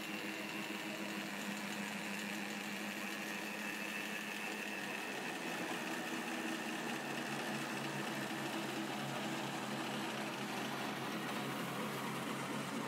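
Plastic film recycling line machinery running steadily: the extruder and strand pelletizer that chops the plastic strands into pellets, a continuous motor hum. A deeper hum takes over about five seconds in.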